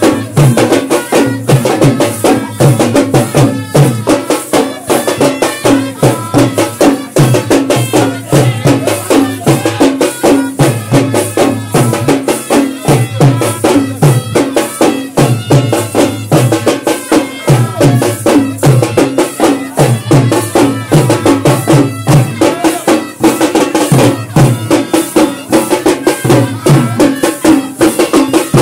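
Live brass band (baja) playing loudly: trumpets carry a tune over a fast, dense beat of drums.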